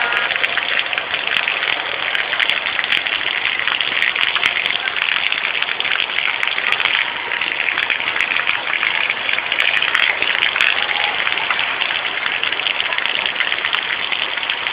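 Heavy rain pouring down, a loud, dense, steady hiss.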